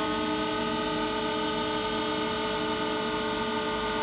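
Wood CNC lathe running, its motors giving a steady whine of several tones over a broader machine hiss.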